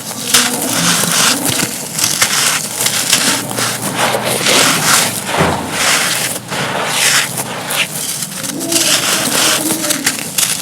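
Dry, brittle cast cones crushed and crumbling, a continuous run of gritty crunches and crackles in quick irregular succession.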